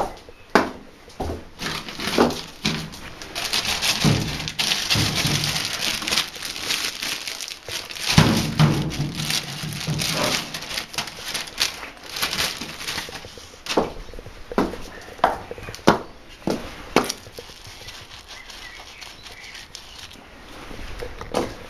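Handling noise around a plastic bucket of tire-mounting paste. There are sharp clicks and knocks of the plastic lid in the first second or two, then a long stretch of rustling and scraping with a dull thump in the middle, then a few more scattered knocks. Near the end a wooden-handled stick stirs in the paste.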